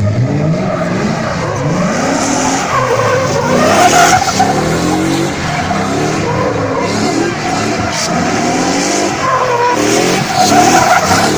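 Drift car sliding with tyres squealing, its engine revving up and down over and over.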